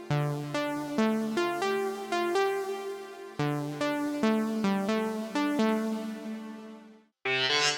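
GForce Oberheim SEM software synthesizer playing a melodic line of short, decaying notes, each with a bright attack that fades quickly. The line stops about seven seconds in, and a brighter, buzzier patch starts just before the end.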